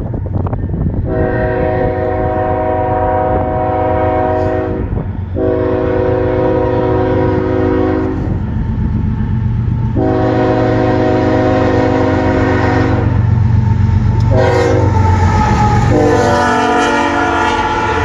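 Lead locomotive horn of a CSX freight train sounding the grade-crossing signal: three long blasts, a short one, then a last long one as the locomotive reaches the crossing. Under it runs the steady rumble of the approaching train.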